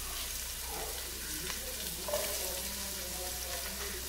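Chopped onions sizzling in hot oil and ghee in a cooking pot: a steady frying hiss with small scattered crackles.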